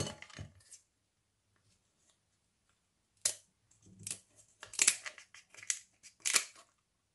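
Kitchen scissors snipping through the hard, spiny shell of a cooked king crab leg, slitting it lengthwise. About three seconds in, a series of sharp crunchy snips begins, roughly one a second.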